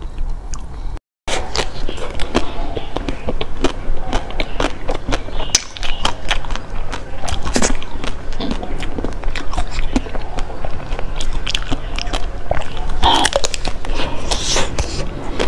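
Close-miked eating sounds: biting into and chewing a fruit-shaped mousse dessert, with many irregular sharp, wet clicks and smacks. There is a brief cut to silence about a second in.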